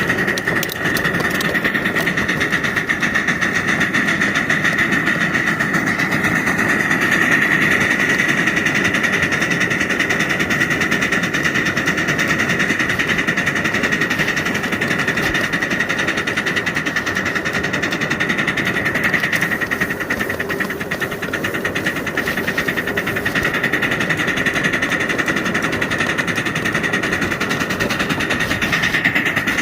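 5-inch gauge live steam locomotive working, giving a steady hiss with a fast, even rattling beat.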